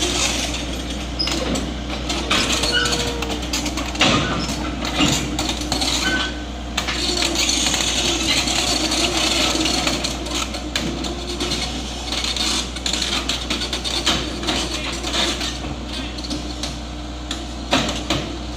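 Komatsu PC78UU excavator's diesel engine running steadily while it crawls forward up onto the truck bed, with many metallic clanks and knocks from the machine's tracks and steelwork.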